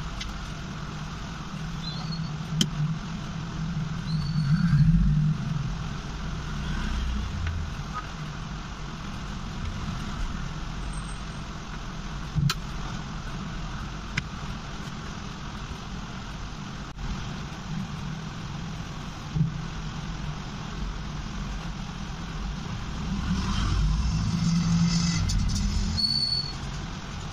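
Steady background rumble and hiss, like distant traffic, with a few light clicks and several short high tones.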